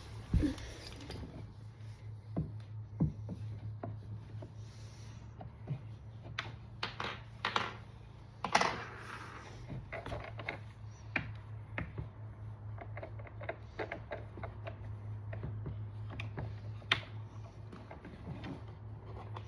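Hand assembly of a metal outdoor bar stool: scattered clicks, taps and knocks as screws are driven with a T-handle hex key and parts are handled, over a steady low hum.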